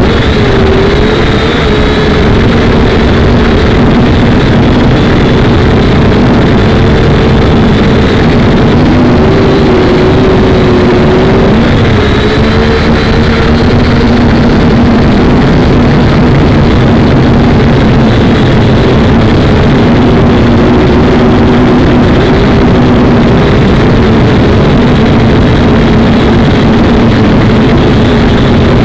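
Small camera drone's propellers and motors running in flight, heard loud and close through the drone's own onboard camera: a steady buzzing whine whose pitch wavers up and down.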